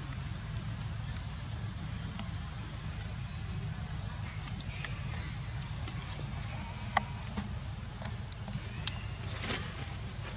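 Outdoor ambience: a steady low rumble with a few faint high chirps, and two sharp clicks, about seven and nine seconds in.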